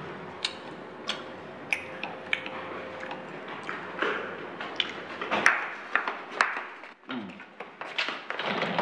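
Cutlery tapping and clinking on a plate during a meal: scattered sharp clicks and light pings at uneven intervals.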